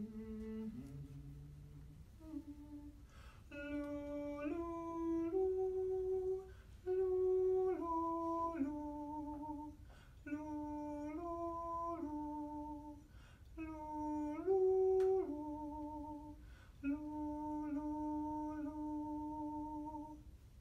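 A man singing short tonal patterns in a light, high head voice, a few held notes per phrase, with brief pauses between the phrases. They are modelling pitch patterns for listeners to take in before repeating them. A few lower notes near the start set the key.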